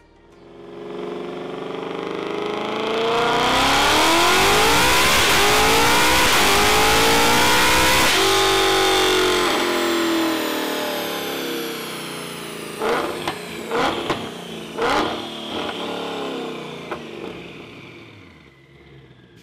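A car engine revving as it approaches and speeds past, its pitch climbing, then dropping suddenly about eight seconds in and sliding down as it fades away. Four sharp cracks come about two-thirds of the way through before the sound dies out.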